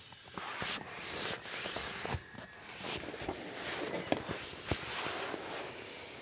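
EXPED MegaMat Auto self-inflating foam mattress being rolled up with its deflate valve open: air hisses out in repeated swells with each push, along with the fabric rubbing and rustling and a few light clicks.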